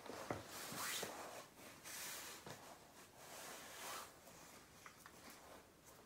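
Rustling of a nylon puffer jacket and the pulling of boot laces while winter boots are laced up: several soft swishes that die down after about four seconds.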